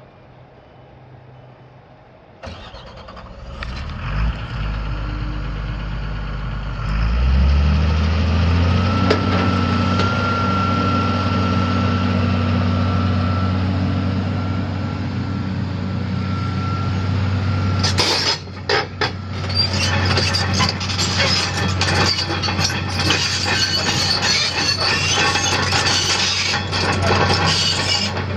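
The diesel engine of a 2006 Doosan DX300LC excavator being cranked and started, catching a couple of seconds in and settling into a steady run that steps up in speed, with a high steady whine for a while. About two-thirds of the way through, a loud rough clatter with many knocks joins the engine.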